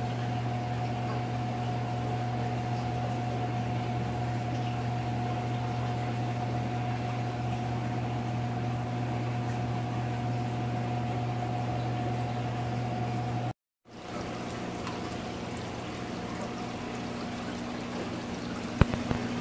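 Steady hum of aquarium equipment with water bubbling from the tank's aeration. It drops out for a moment about fourteen seconds in, then resumes.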